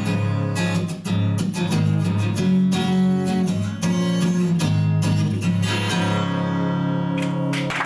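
Acoustic guitar strummed in a steady rhythm, then a final chord left ringing for the last second and a half or so.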